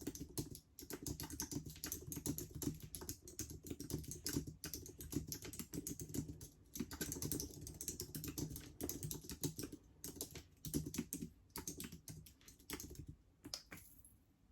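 Fast, continuous typing on a Mac computer keyboard with long curved gel nails: rapid clacking keystrokes that thin out and stop near the end as the test finishes.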